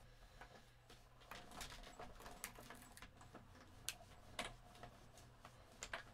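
Faint, irregular clicks and light knocks from a hand-cranked die-cutting machine being turned as a metal die and cardstock go through its rollers.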